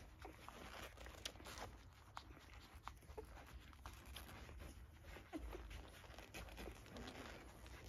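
Newborn Pungsan puppies nursing from their mother: faint suckling clicks with a few short, soft squeaks.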